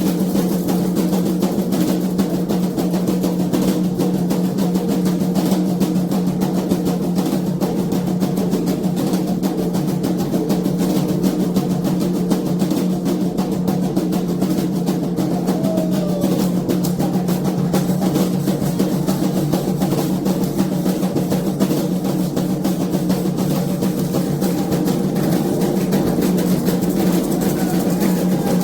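Candomblé atabaque drums playing a rapid, continuous ceremonial rhythm, dense strokes without a break.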